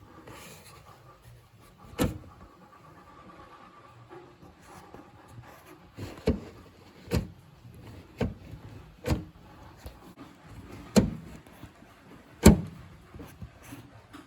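Jeep Cherokee XJ door lock mechanism being worked back and forth by hand, giving a string of sharp clicks: one about two seconds in, then six more about a second apart in the second half. It moves freely, so the lock itself is not binding.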